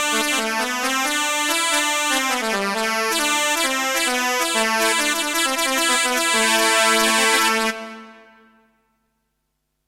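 Roland Fantom-X6 synthesizer playing a keyboard patch: a run of chords and melody notes that stops about three-quarters of the way through and dies away to silence.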